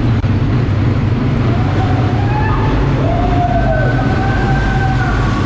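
ATV (quad bike) engine running steadily, with thin wavering high tones over it from about two seconds in.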